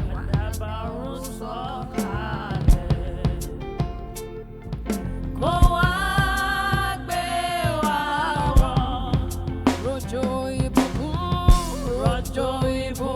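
Live gospel worship music: a band with drum kit playing under a singer's held, sliding vocal lines.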